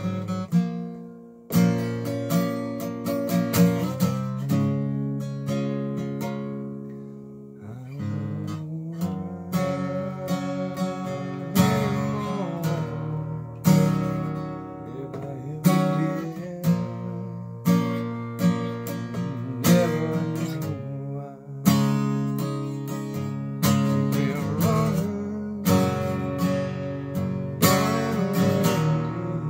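Acoustic guitar played solo as an improvised riff: strummed chords left to ring, a new strum about every two seconds in the second half, with a few sliding notes in between.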